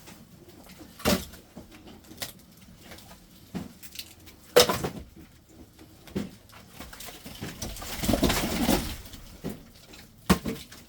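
Firewood logs knocking and clattering against each other as they are handled: scattered single knocks, the loudest about four and a half seconds in, and a longer rattling clatter around eight seconds in.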